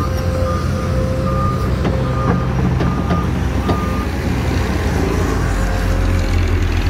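XCMG XE215C excavator's Isuzu 6BG diesel engine running steadily under working load, with a steady whine over it. A warning beeper sounds repeatedly through the first four seconds or so as the loaded bucket swings, then stops.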